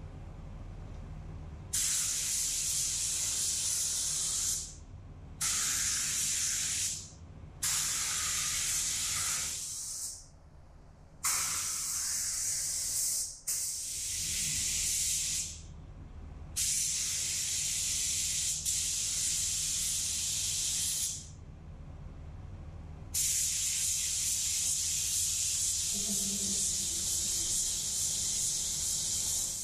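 Compressed-air gravity-feed spray gun hissing as it sprays epoxy primer, in about seven bursts of two to six seconds each with short pauses between them as the trigger is pulled and released. A steady low hum runs underneath.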